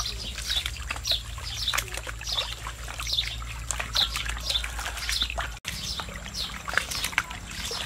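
Water sloshing and splashing as a plastic basket of fresh noodles is swished through a concrete water jar, with birds chirping over it, many short calls that fall in pitch.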